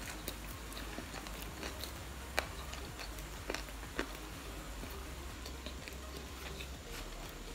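Two people eating submarine sandwiches: faint chewing and bites into soft bread rolls, with a few scattered sharp little clicks, the clearest about two and a half seconds in.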